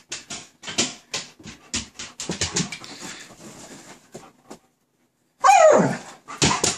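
German Shepherd playing on a bed, scuffling and rustling in the bedding as she tosses a cloth about. About five and a half seconds in she gives one loud whine that falls in pitch.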